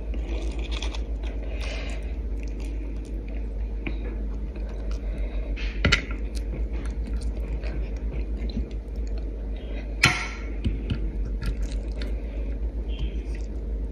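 Eating sounds: soft chewing and small clicks as fish is picked apart by hand on a ceramic plate, with two louder clacks about six and ten seconds in. A steady low hum runs underneath.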